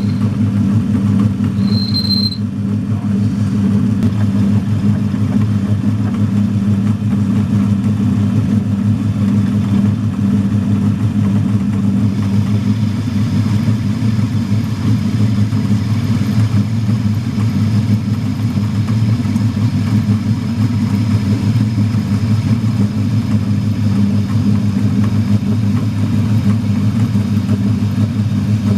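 A 100-year-old metal lathe running steadily with a deep, even hum while a steel bar is faced and turned down. There is a brief high whine about two seconds in.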